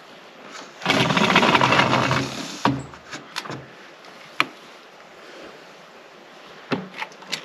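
Orange PVC drain pipe being forced into its socket fitting without lubricant: a harsh scraping grind of plastic for about two seconds, then a few sharp clicks and knocks as the pipe shifts.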